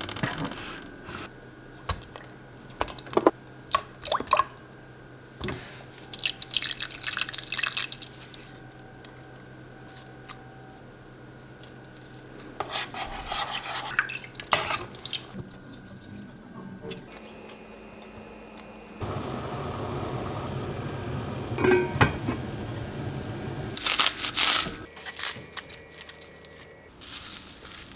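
Kitchen work sounds: clinks of jars and utensils, water sloshing as a metal ladle stirs a stainless-steel stockpot, and near the end a few loud, brief snips of scissors cutting garlic chives into a glass bowl.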